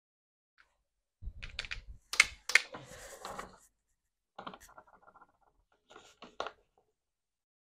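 Handling noises: an irregular run of clicks and knocks with rustling, the loudest being two sharp knocks about two seconds in, then lighter clicking.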